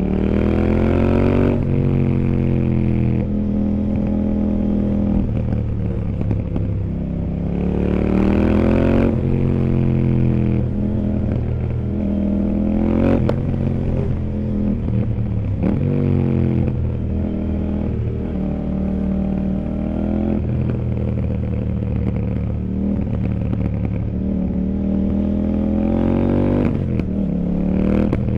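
CFMOTO 800NK's parallel-twin engine heard from on board while riding, revving up hard and rolling off over and over. Its pitch climbs sharply about a second in, again around a third of the way through, several times after that, and once more near the end.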